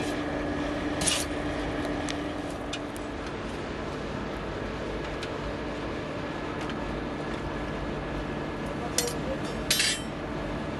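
Forge fire burning steadily: an even rushing noise with a low hum. It is broken by a sharp metallic clink about a second in and a few more clinks near the end.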